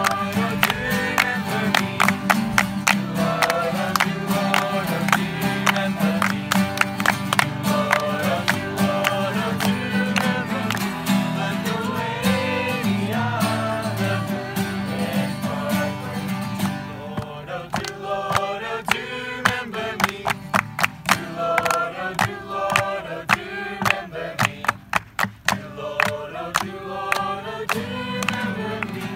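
Several acoustic guitars strummed together in a steady, upbeat gospel-bluegrass rhythm, with a group singing along and clapping in time.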